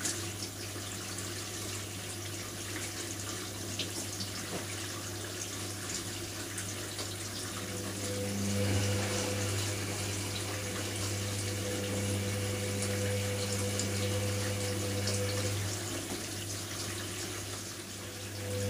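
Hoover Nextra front-loading washing machine in its wash phase: water sloshing and trickling in the drum over a steady low hum. About eight seconds in, the drum motor starts up and runs with a whirring tone while the drum turns. It stops a few seconds before the end and starts again right at the end.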